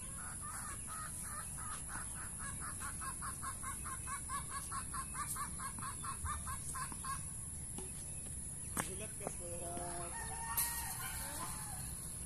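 Domestic chickens: a fast, even run of short clucking calls, about four a second for some seven seconds, then a rooster crowing near the end. A single sharp crack of a tennis ball off a racket comes in between.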